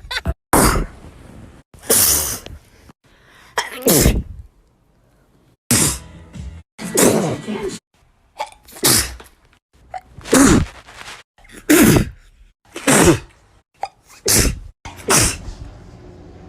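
A woman sneezing again and again, about eleven sneezes roughly one every second or so. Several end in a voiced 'choo' that falls in pitch, and some cut off abruptly into silence.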